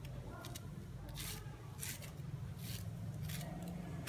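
A kitchen knife cutting kernels off a raw corn cob, a run of short scraping strokes a little over one a second.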